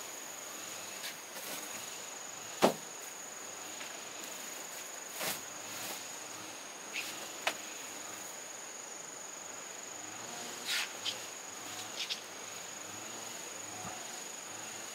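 Steady high-pitched insect chirring, with a scattering of sharp knocks and clicks on top; the loudest knock comes about two and a half seconds in.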